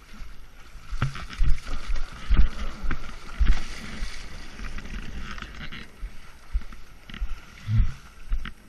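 Water splashing and sloshing around a kayak as it is paddled through shallow floodwater, loudest in the first half, with occasional knocks and wind buffeting on the microphone.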